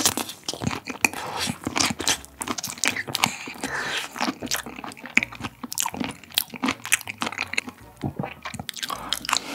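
Close-miked chewing of a mouthful of gamtae seaweed wrapped around raw shrimp and salted pollock roe: a dense run of small mouth clicks and smacks.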